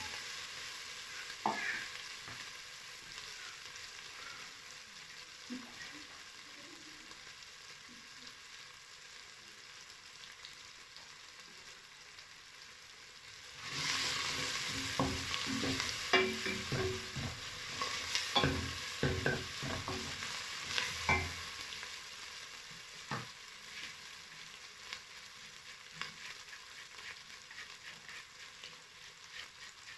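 Food sizzling in a frying pan as the coriander and base cook down into a paste, with a spoon stirring and scraping the pan, louder and busier for several seconds in the middle.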